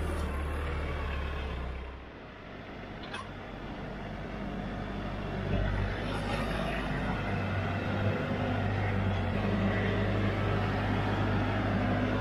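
Branson compact tractor's diesel engine running as the tractor drives, a steady low drone; it drops about two seconds in, then picks back up.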